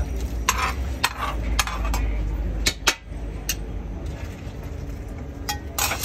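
Metal ladle and slotted skimmer clinking against a ceramic bowl and the rim of a large soup pot as broth and meat are served. There are a series of sharp clinks, most of them in the first three and a half seconds and two more near the end, over a steady low rumble.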